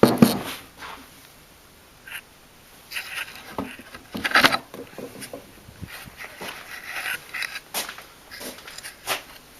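Irregular knocks, clinks and rustles of metal parts being handled at a lathe chuck, with a heavy knock right at the start.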